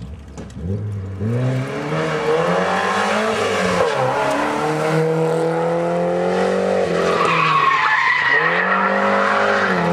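Volvo 940 rally car's engine accelerating hard as it approaches and passes, its pitch climbing, dropping briefly about four seconds in and again about eight seconds in, then climbing again. A higher whine rides over the engine around seven to eight seconds in.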